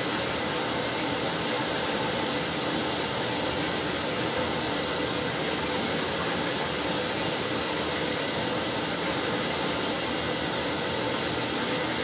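Washing machine running a wash, with water and laundry churning in the drum: a steady, even noise.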